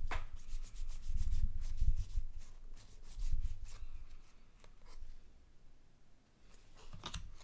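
A pile of baseball trading cards being leafed through by hand: card stock rubbing and sliding, with irregular low bumps of handling and a sharp click at the start and again near the end.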